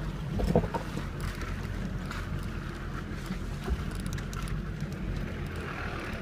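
Cabin sound of a Toyota Land Cruiser HDJ80 driving over a rough, muddy forest track: its 4.2-litre straight-six turbo diesel runs steadily, with a few knocks and rattles as the truck bumps, loudest about half a second in.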